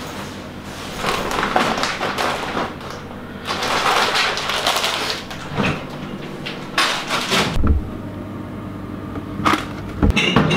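Kitchen handling noises over a steady low hum: rustling, clatter at the counter and a fridge door being opened, with a dull thump about two-thirds of the way through.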